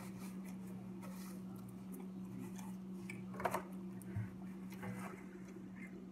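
Eating and handling sounds: quiet chewing with small rustles and clicks from a paper napkin and food packaging, over a steady low hum. A short louder sound comes about three and a half seconds in.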